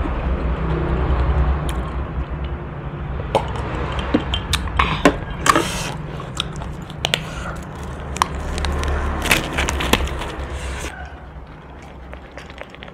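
Scattered clicks and crackles of plastic food-handling gloves being rubbed and pulled off the hands, over a steady low background rumble.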